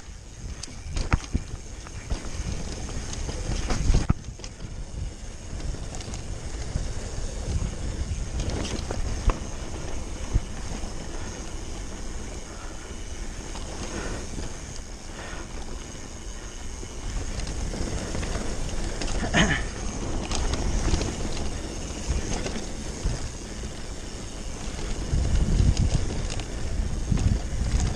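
Mountain bike rolling fast down a dirt singletrack: tyre and trail rumble with scattered knocks and rattles over bumps, and wind rushing over the helmet camera's microphone. There is a brief sharper sound about two-thirds of the way in, and the rumble gets heavier near the end.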